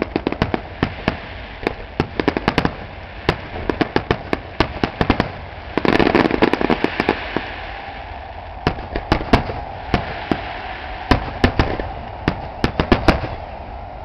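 Aerial fireworks display: shell bursts going off in quick, irregular succession, with a dense, noisy barrage about six seconds in, then more single bangs.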